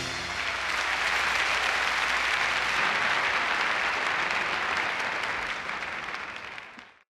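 Large concert audience applauding at the close of a song, fading out near the end.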